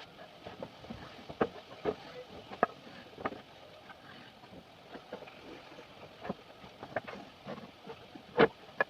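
Irregular knocks and taps of wood being worked by hand, about a dozen, spaced unevenly, with the loudest knock near the end.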